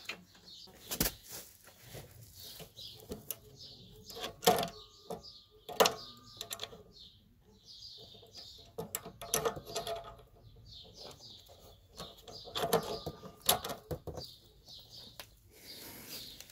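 Irregular sharp metal clicks and knocks as the mounting bolt is worked into the lower mount of a Yamaha Jog scooter's rear shock absorber; one clink rings briefly. Birds chirp throughout.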